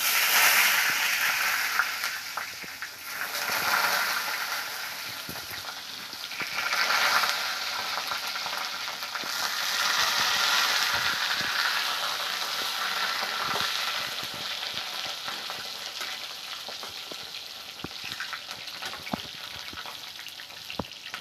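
Brinjal (eggplant) slices frying in hot oil in a metal wok. A loud sizzle starts suddenly as the first slice goes in, swells again a few times as more slices are added, then slowly eases, with light clicks of a metal spatula against the pan.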